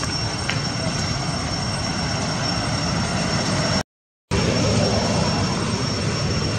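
Steady rushing background noise with no distinct animal calls; it cuts to silence for about half a second around four seconds in.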